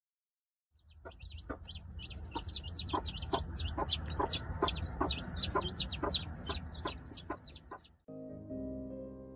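Chicks peeping rapidly and continuously while a broody hen clucks steadily, about two clucks a second. Both stop suddenly near the end and piano music comes in.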